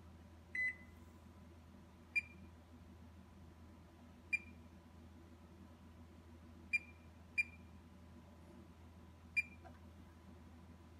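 Electronic wall oven control panel beeping as its touch keys are pressed to set convection bake at 230°F: six short high beeps, a second or two apart, the first a little longer than the rest.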